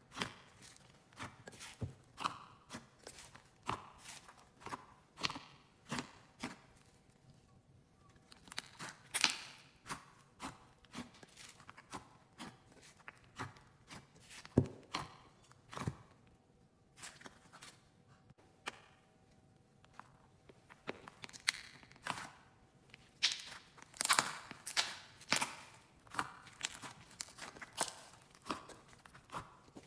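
Thick slime being pressed and squeezed by hand, giving a long series of sharp pops and crackles, about one or two a second, with a few short pauses.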